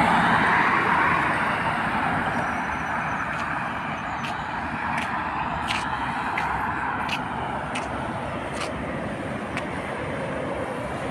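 Road traffic, loudest at the start as a car passes close, then settling to a steady wash of traffic noise. Scattered faint short high clicks through the middle.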